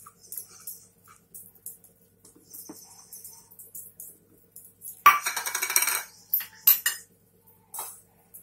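Steel bowl clinking and scraping against a stainless-steel mixer-grinder jar as chilli paste is emptied into it: light clinks at first, about a second of loud scraping and clattering some five seconds in, then a few sharp clinks.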